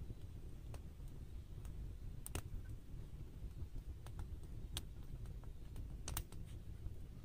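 Oak wood campfire crackling: irregular sharp pops and snaps, about a dozen over several seconds, over a low steady rumble.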